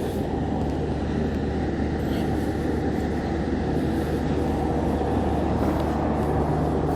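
Steady low engine hum with a constant drone, the running machinery of a funfair.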